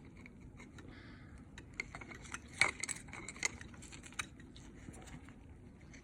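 Light clicks and clinks of small metal and plastic parts of a Honeywell gas control valve being handled as it is taken apart, with a few sharper clicks around the middle.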